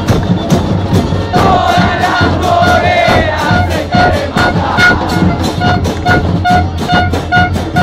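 Crowd of football supporters chanting together over a fast, steady drumbeat, with short repeated notes in time with the beat.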